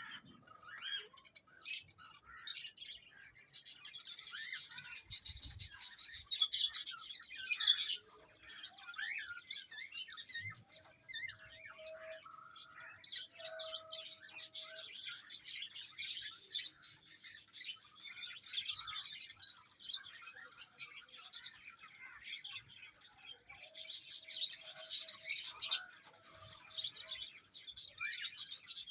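Pet lovebirds chirping and twittering rapidly and continuously, louder in several stretches.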